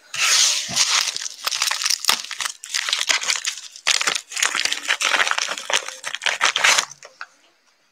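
Foil trading-card pack wrapper being torn open and crinkled by hand, a dense crackling that stops about seven seconds in.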